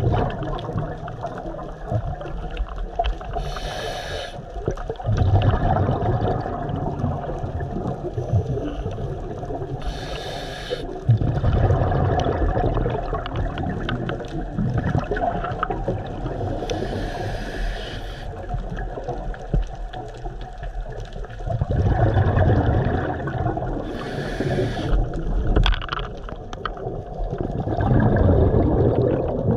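A scuba diver breathing through a regulator underwater. Four inhalations, about every six to seven seconds, each a short hiss of air, alternate with louder, low bubbling bursts of exhaled air.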